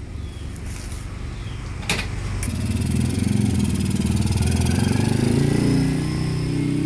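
Motorcycle engine running, with a sharp click about two seconds in, then revving up louder as the bike pulls away.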